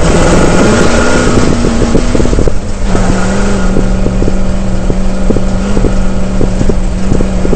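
Prerunner truck engine running hard at speed across sand, loud and heavy with wind noise on the microphone. Its pitch wanders over the first couple of seconds, drops briefly about two and a half seconds in, then holds steady, with frequent short knocks throughout.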